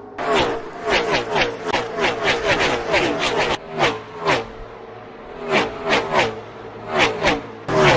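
Gen 6 NASCAR V8 stock cars passing at speed one after another, each engine note falling in pitch as it goes by. A close pack streams past in the first few seconds, then single cars go by about once a second.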